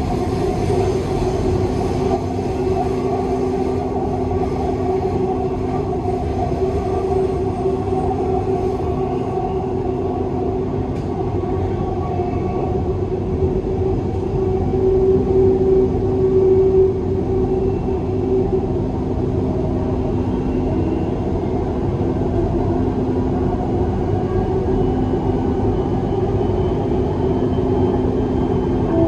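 Dubai Metro train running between stations, heard from inside the car: a steady rumble of wheels on rail with a held hum from the drive. It swells briefly about halfway through.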